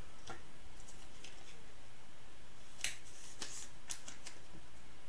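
Trading card being slid into a rigid plastic top loader: a handful of light plastic scrapes and clicks, mostly in the second half, over a steady background hiss.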